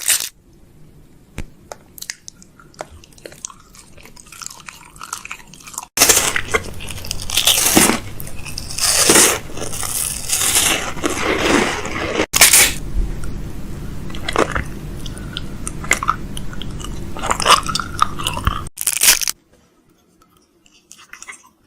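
Close-up crunching and crinkling noises that start loud about six seconds in and change abruptly at hard cuts, with a steady low hum under the second half; they stop near the end.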